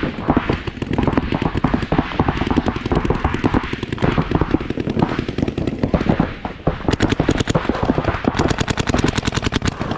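Paintball markers firing rapid strings of shots, the nearest from a Planet Eclipse CS3 with the camera on its barrel. Near the end the shots come in a very even string of about ten a second.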